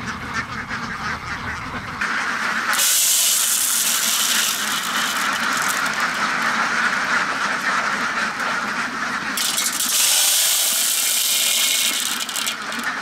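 A large flock of domestic ducks quacking and clamouring, crowded around feed. A loud steady hiss sits over the flock from about three seconds in, breaks off briefly near nine seconds, then returns. A low hum is heard only in the first two seconds.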